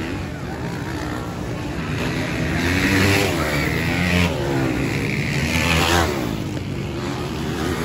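Motocross dirt bike engines revving hard as riders race around the track. The engine pitch rises and falls again and again, loudest about three, four and six seconds in.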